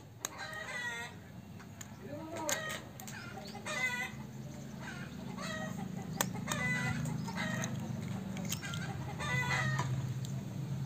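Chickens clucking and calling again and again, with a few sharp clicks of a steel spoon tapping an eggshell to crack it. A low steady hum sits underneath and grows stronger from about four seconds in.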